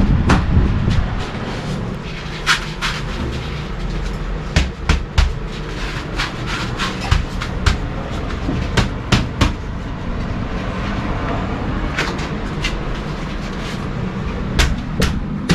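A steady low machine hum with irregular sharp clicks and knocks over it, about one to three a second, from work being handled during the installation.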